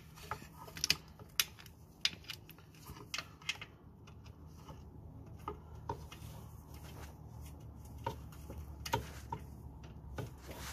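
Ratchet with a 12 mm socket clicking in short strokes as it tightens an engine's oil drain bolt: scattered sharp clicks over a faint low hum.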